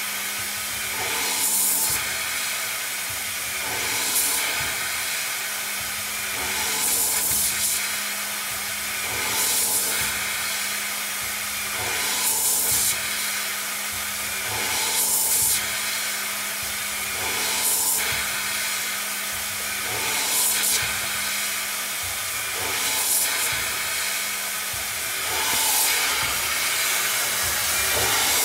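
Tormach CNC lathe single-point threading a steel part with a custom form tool: a steady spraying hiss and a low spindle hum, with a brighter swell of cutting noise about every two and a half seconds as the tool takes each threading pass.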